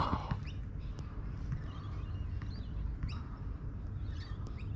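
Scattered short bird chirps over a steady low background rumble, with a brief louder burst at the very start.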